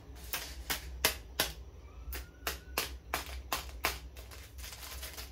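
Long acrylic fingernails tapping and clicking against each other: an irregular run of sharp clicks, about two to three a second.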